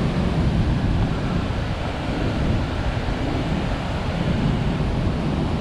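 Steady rush of the Athirappilly waterfall: an even, unbroken noise of falling water, heaviest in the low end.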